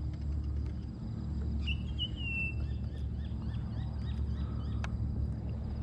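Outdoor lake ambience: a bird gives one short call about two seconds in, over faint repeated chirping and a steady low rumble. A single sharp click sounds near the end.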